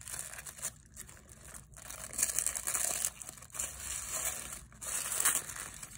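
Tissue paper crinkling and rustling in uneven spurts as hands unwrap it from around a pen.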